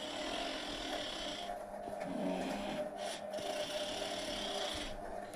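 A sleeping person snoring in slow, drawn-out breaths, each about a second and a half long, over a steady low hum.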